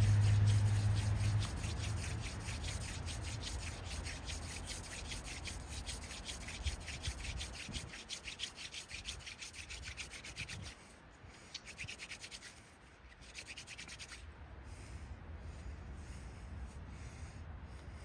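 Hand-drill friction fire: an elderberry spindle twirled fast between the palms, its tip grinding into a cottonwood baseboard in a quick even rhythm of wood-on-wood rubbing. The strokes grow fainter and sparser after about eleven seconds. A low hum dies away in the first second or two.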